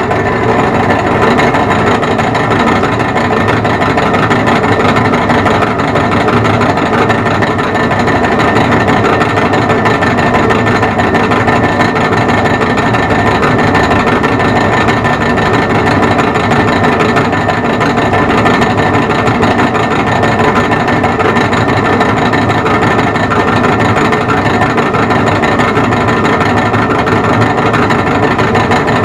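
Turnell & Odell lathe running steadily at slow speed in back gear, its underpowered motor and gear train giving a loud, even mechanical hum with several constant tones while it drills through the tailstock quill.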